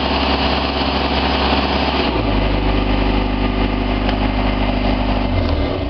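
Engine of an aerial lift machine running steadily. Its note changes abruptly about two seconds in to a steadier, lower pitch, and it drops away near the end.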